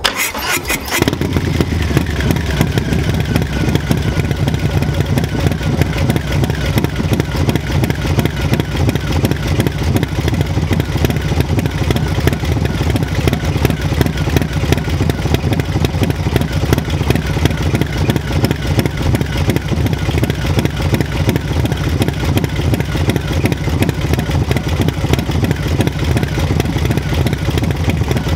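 Harley-Davidson Low Rider S's stage 3 122 cubic-inch Milwaukee-Eight V-twin with an S&S 475 cam, through a Two Brothers Racing exhaust, starting up and settling into a steady, pulsing idle with a raspy exhaust note.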